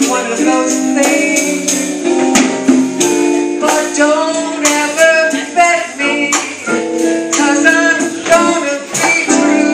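Live jazz combo playing, with guitar, piano and a drum kit, in steady time with frequent cymbal and drum strokes.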